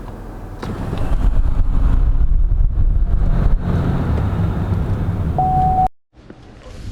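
Car driving, heard from inside the cabin: a steady low road-and-engine rumble that grows louder about a second in. A short steady beep sounds just before it cuts off abruptly near the end.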